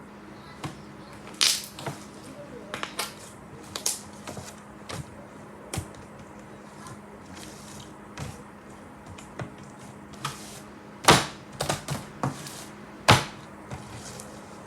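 Ice slime's hardened crust crackling and crunching as it is pressed and handled: irregular sharp crackles, the two loudest near the end.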